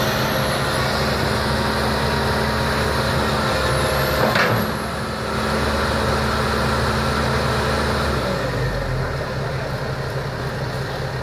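Diesel engines of a Kobelco and a Komatsu excavator running steadily under load, with hydraulics working, as a stuck machine is recovered from deep mud. A brief hiss comes about four and a half seconds in, and the low engine note changes near eight seconds.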